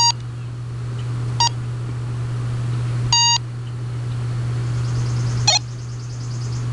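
Handheld walkie-talkie key beeps as its buttons are pressed to change channel: three short electronic beeps in the first few seconds, then a short click about five and a half seconds in, over a steady low hum.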